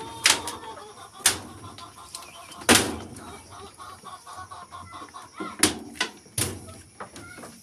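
A flock of heritage chickens clucking softly while they peck at feed, broken by half a dozen sharp knocks and rattles, the loudest about a third of the way in and three close together near the end.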